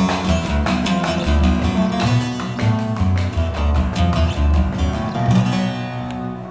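Oud music: a quick run of plucked notes over a low bass line, fading out near the end.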